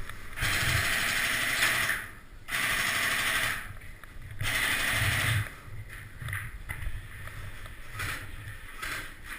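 Airsoft rifle firing three bursts of rapid automatic fire in the first half, each about one to one and a half seconds long, with short gaps between.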